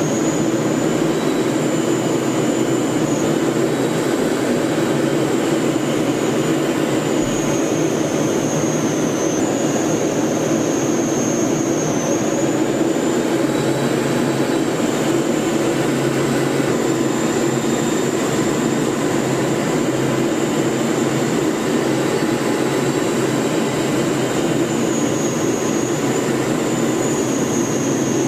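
Steady drone of an aircraft's engine and rushing air, heard from on board in flight, with a thin high whine that dips slightly in pitch now and then.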